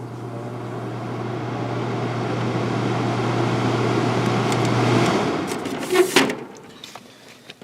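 Window air conditioner's Westinghouse fan motor running with a steady hum, its airflow rush building as the fan gathers speed. About five seconds in the motor is switched off: the hum stops and the fan's rush dies away, with two sharp clicks a second later.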